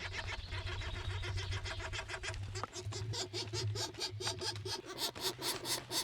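Black woodpecker nestlings begging at the nest: a fast run of short repeated calls that grows louder and quicker about halfway through, as the parents feed them.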